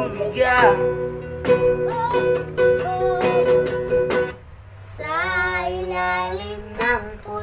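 Acoustic guitar strummed in rhythm under young boys singing. A little past four seconds the strumming and voice drop out briefly, then the singing resumes.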